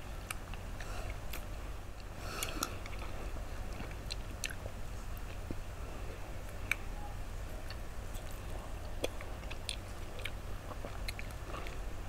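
Close-up eating sounds of two people biting into and chewing frozen milk popsicles: scattered sharp little crunches and mouth clicks at irregular moments. A steady low hum runs underneath.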